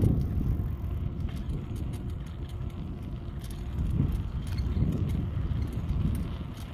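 Bicycle riding over paving: tyre rumble and wind buffeting the microphone, swelling and easing, with light rattling clicks.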